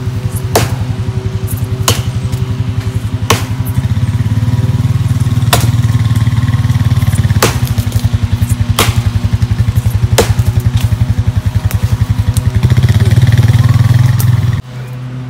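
Loud background music with a heavy, rapidly pulsing bass and chord changes, over sharp chops of an axe biting into a thin tree trunk, one about every one to two seconds. The music drops away near the end.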